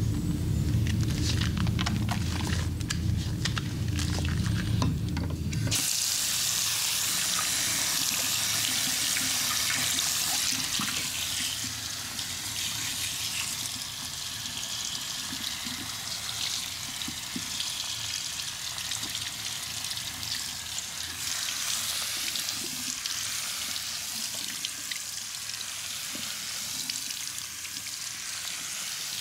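Water running and splashing steadily, as feet are washed. It follows a low steady hum with clicks that cuts off abruptly about six seconds in.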